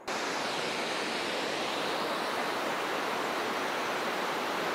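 Steady, even rush of fast-flowing river water, cutting in abruptly at the start and holding unchanged.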